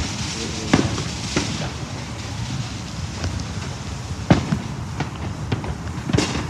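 Fireworks going off: several sharp bangs and pops at uneven intervals over a steady low rumble, the loudest bang a little past the middle.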